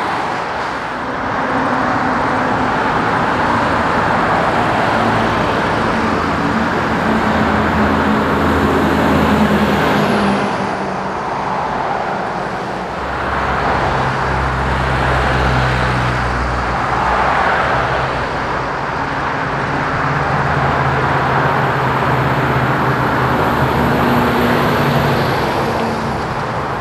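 Road traffic passing close by: cars and a pilot ute with tyre noise and engine hum, then a heavy truck's low diesel drone as its multi-axle trailer carrying a concrete beam rolls past.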